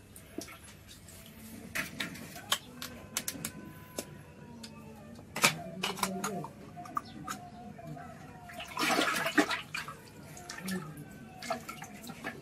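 Aluminium kulfi moulds clinking against one another and against the aluminium pot as they are dipped into and filled with liquid kulfi mix, with a liquid gurgle and splash. A louder splash comes about nine seconds in.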